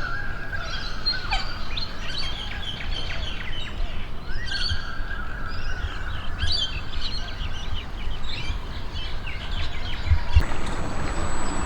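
Birds chirping and calling, with several short chirps and a couple of longer whistled notes, over a low rumble of wind on the microphone. Near the end a steady high whine starts.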